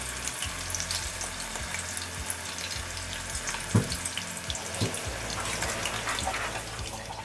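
Shishito peppers sizzling and crackling in hot frying oil; the peppers have been slit so they don't burst. Two light knocks come about a second apart near the middle.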